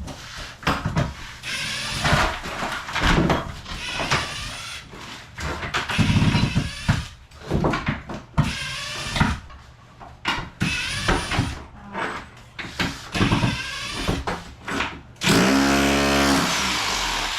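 Bosch Bulldog Max SDS-Plus rotary hammer with a tile chisel breaking up floor tile and cement board, going in short irregular bursts with knocks, then running steadily for about two seconds near the end.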